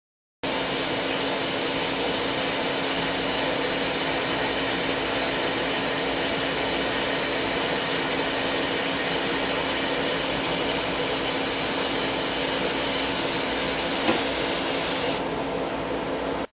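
Lathe boring dry into a chromoly steel (SCM435) bore with a boring bar and carbide insert: a steady cutting hiss over a steady low machine hum. A brief tick about 14 seconds in, and the sound turns a little quieter and duller near the end.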